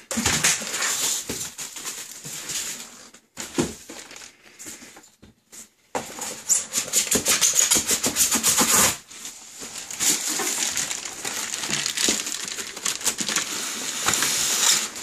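Packaging being handled: a plastic bag crinkling and rustling, with the foam insert and cardboard box scraping. The sound drops almost away for a couple of seconds partway through, then comes back as louder, denser crinkling.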